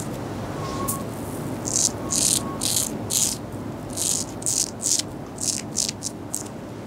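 Razor scraping lathered stubble in a run of about a dozen short, quick strokes, beginning about a second and a half in.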